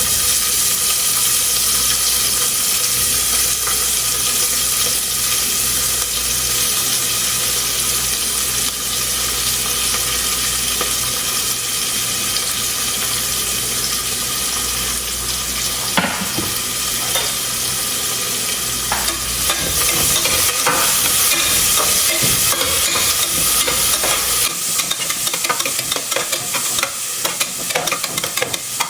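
Chopped onion sizzling in hot coconut oil and ghee in a pan, with a steady hiss. Irregular scraping strokes of a spatula stirring the pan come in from about halfway through.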